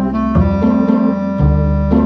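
Instrumental background music: held pitched notes over a bass line that changes about once a second.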